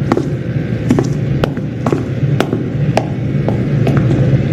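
Footsteps on a hard floor, about two a second, over a steady low droning hum.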